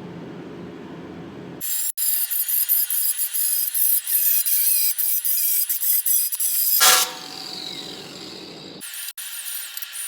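Power tool cutting or grinding, in loud high-pitched stretches broken by sudden cuts, with a falling whine as it spins down about seven seconds in.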